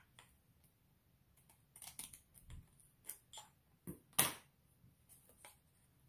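Scissors cutting through a sheet of adhesive rhinestone wrap: a scattered run of short snips and clicks, the loudest a little after four seconds in.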